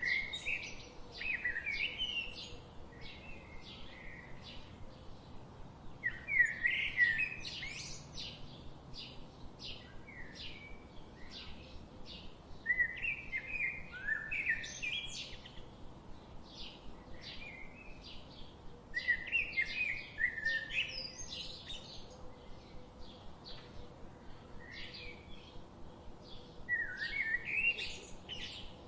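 Songbirds singing: a loud, warbling song phrase repeats about every six seconds, with quick, rapid chirps continuing between phrases.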